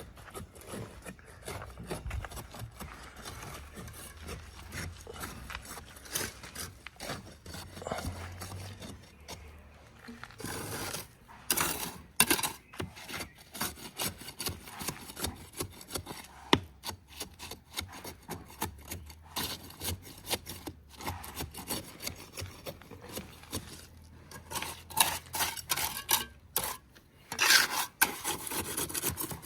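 Hand tool work on masonry: repeated irregular rasping and scraping strokes, growing sharper and more frequent partway through and again near the end.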